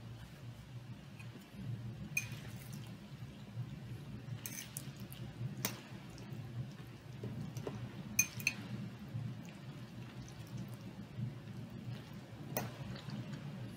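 A metal fork clinks sharply against a bowl several times at uneven intervals as pasta salad is eaten, over a low steady hum.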